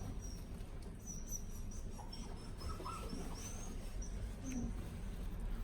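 A small bird chirping repeatedly: short, high chirps over a low steady hum.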